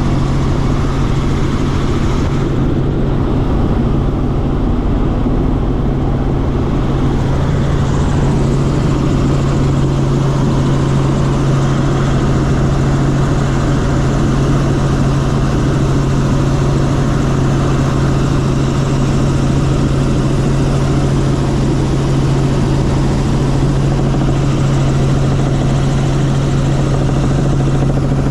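Helicopter in flight heard from the passenger cabin: a loud, steady drone of engine and rotors with a strong constant low hum.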